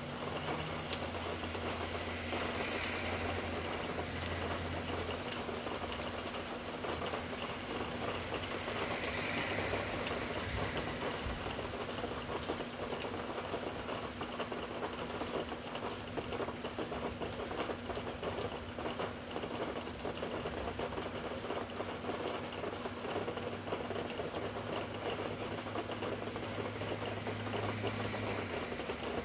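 Rain pattering steadily, with many small ticks of drops striking close by.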